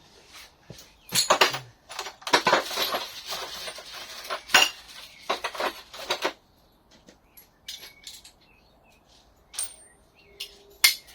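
Steel sockets and hand tools clinking and rattling against each other as they are rummaged through to find a 24 mm socket. The clatter is busiest over the first six seconds, then thins to a few scattered taps and ends with one sharp click.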